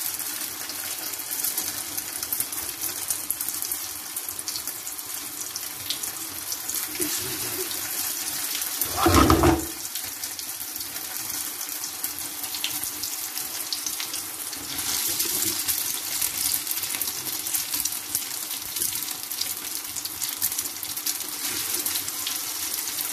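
Egg-coated chicken shami kababs sizzling in shallow oil on a flat pan: a steady hiss with fine crackling. About nine seconds in there is a brief dull thump, the loudest sound.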